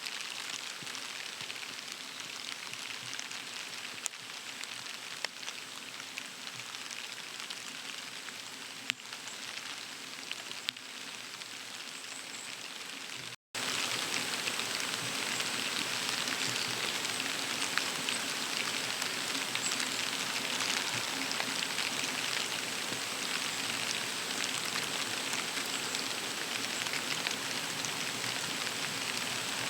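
Steady rain falling, an even hiss scattered with small drop ticks. It cuts out for a moment about halfway through and comes back louder.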